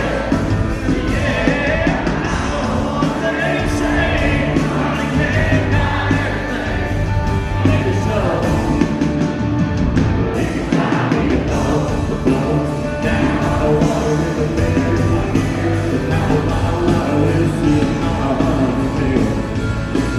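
A live country band plays loud through the PA, with a man singing the lead into a microphone over drums, bass and guitars.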